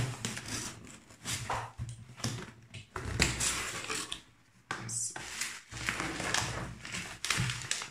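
A cardboard shipping box being handled and opened, with brown kraft packing paper crinkled and pulled out: irregular bursts of rustling and scraping.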